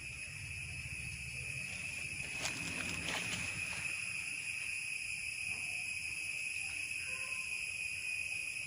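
Steady high-pitched drone of an insect chorus, with a few short clicks and rustles about two and a half to three and a half seconds in.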